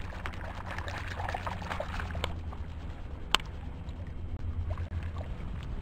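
Hooked carp splashing at the surface of shallow water near the bank for about two seconds. A single sharp click follows a little after three seconds in, over a steady low rumble.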